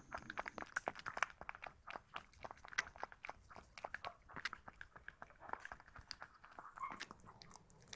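A puppy chewing and eating food: a quick, irregular run of small wet clicks, smacks and crunches from its mouth.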